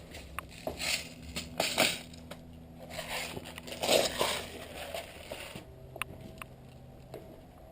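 Irregular crunching and rustling of footsteps through dry leaves and undergrowth, in uneven bursts, with a few sharp clicks.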